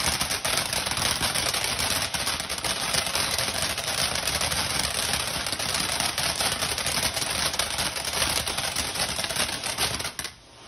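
Phantom Fireworks Alpha Wolf ground fountain spraying crackling sparks: a dense, rapid crackle that stops suddenly near the end.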